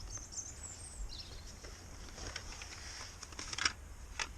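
Outdoor ambience: a low wind rumble on the microphone with faint bird chirps, and a few sharp clicks and knocks of gear being handled, the loudest near the end.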